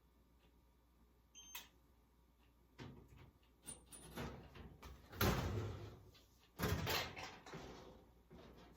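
Household handling noises: a few sharp clicks and knocks, then two louder scraping, rustling stretches, much like a door or cupboard being worked.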